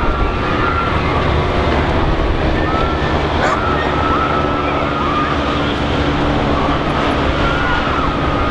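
Steady murmur of a large outdoor crowd, with wind on the microphone and scattered short high calls rising and falling over it.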